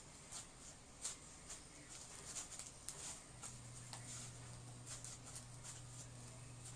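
Crunchy slime packed with microfoam beads being mixed and squeezed, giving irregular faint crackles and pops.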